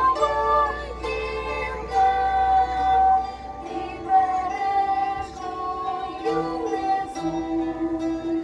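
An ensemble of banduras, Ukrainian plucked string instruments, playing together while voices sing a melody with long held notes.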